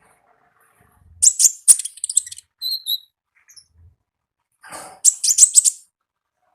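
Konin, a small songbird, giving sharp high chirps in quick rattling bursts: a fast run of notes about a second in, a few short thin whistled notes after it, and another rapid burst past the middle.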